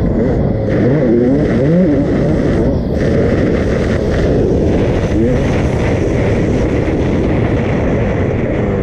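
2001 Honda CR250R's single-cylinder two-stroke engine being ridden hard, its pitch rising and falling as the throttle is worked, with a dense rushing noise underneath.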